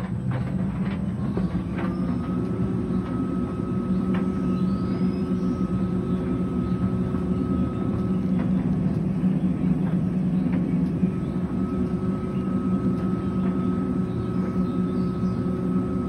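Bauknecht heat pump tumble dryer running with a load of towels: a steady hum with a whine that rises in pitch and levels off about two seconds in as the machine gets up to speed, and occasional soft knocks from the tumbling laundry.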